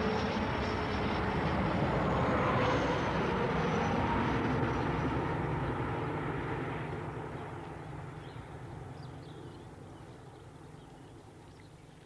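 Passenger train running across a stone viaduct: a steady rolling noise with a faint whine, loud at first and then fading away over the last six seconds or so.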